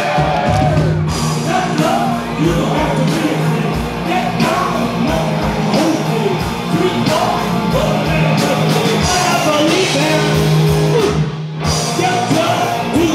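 Loud rock music with singing and yelled vocals, dropping away briefly about eleven and a half seconds in.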